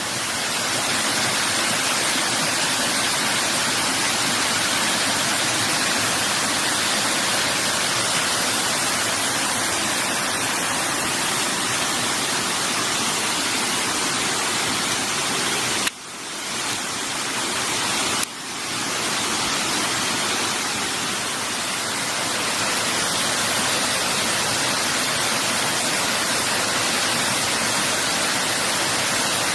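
Woodland stream rushing over rocks in small white-water cascades: a steady, dense rush of water. About halfway through the sound drops away suddenly twice and swells back.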